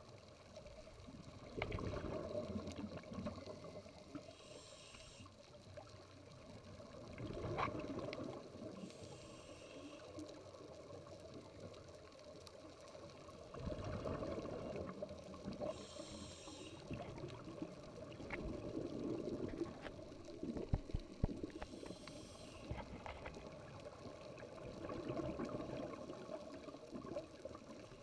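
A scuba diver breathing through a regulator underwater: short hissing inhalations alternating with bubbly exhalation rushes, five exhalations about every six seconds.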